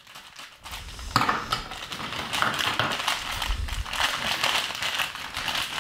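Crinkly plastic blind-bag wrapper crackling as it is handled and pulled open, with a sharp crackle about a second in.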